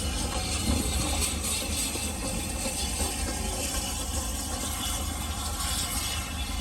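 Heritage railway train running: a steady low rumble with an even hiss over it.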